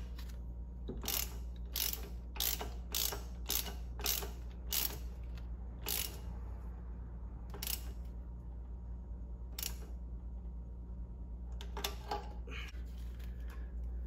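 A hand socket ratchet clicking in short strokes as an oil pressure sensor is screwed into the engine: quick regular strokes at first, then a few spaced-out ones, then a short quick run near the end.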